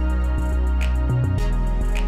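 Background music with a steady beat: a drum hit about once a second over held bass notes.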